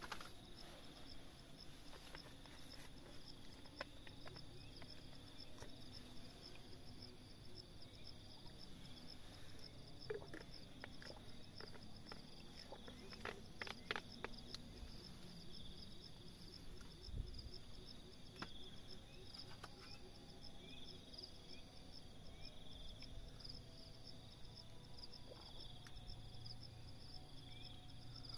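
Faint steady chirping of crickets in a continuous high pulsing trill. In the middle come a few sharp clicks as a plastic water bottle's cap is opened, followed shortly by a soft low thump.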